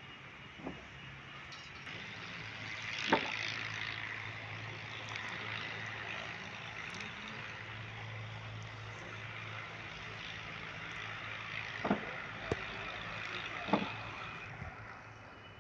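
An engine running with a steady low hum, louder from about three seconds in and easing off near the end, with a few sharp knocks.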